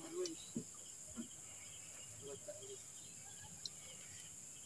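Steady high-pitched chorus of night insects, faint, with a few soft knocks near the start and one small click later on.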